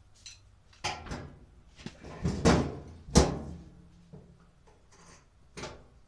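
Parts of a Maytag A512 washer being handled, giving a series of knocks and clunks, the loudest about three seconds in.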